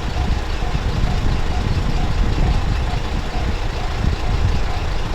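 Japanese level-crossing warning bell ringing at an even pace of about two strokes a second, over a loud low rumble.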